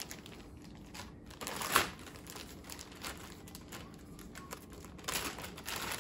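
Clear plastic packaging bags crinkling as the bagged TV stands are handled and set down, in scattered rustles with a louder crinkle about two seconds in and more near the end.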